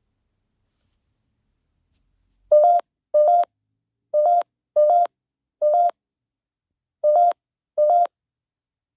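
Seven short electronic beeps, each the same steady mid-pitched tone, coming at an uneven pace from about two and a half seconds in.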